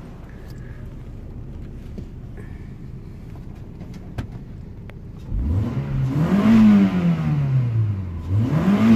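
Seat Leon 1M's 1.6-litre BCB petrol four-cylinder idling steadily, then revved. About five seconds in the revs climb, peak and fall back, and near the end they climb again.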